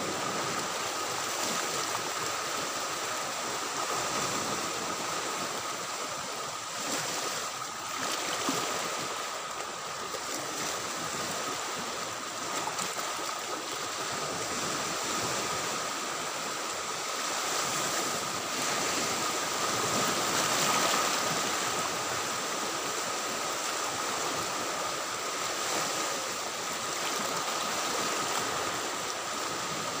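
Small sea waves lapping and washing through shallow water among mangrove trees, a steady rush of water that swells a little about two-thirds of the way through.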